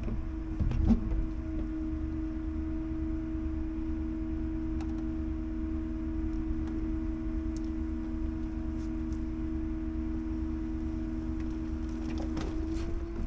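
Scania timber truck's engine running at a steady hum, with a few clicks about a second in and again near the end.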